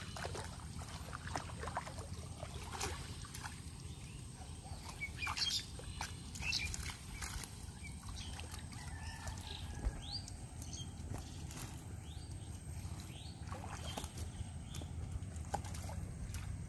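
Shallow water sloshing and splashing, with scattered small splashes and clicks as a mesh ring net is lifted out of the water and shaken into a plastic crate, over a steady low rumble.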